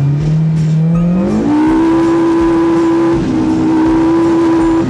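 Polaris RZR Pro R side-by-side's 1997cc inline four-cylinder engine revving hard as the machine drives through deep snow. The revs climb steeply about a second in, hold high, and start to drop right at the end.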